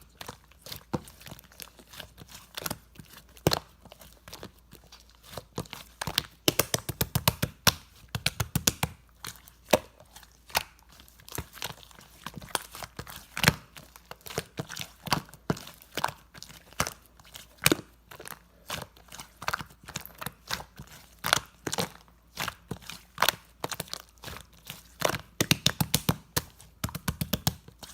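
Irregular sharp taps and clicks from something handled close to the microphone, with quick runs of rapid tapping twice.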